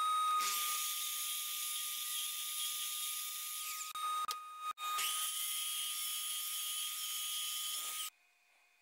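Sliding miter saw running with a steady high-pitched whine, with a brief break about halfway and a sudden cut-off near the end.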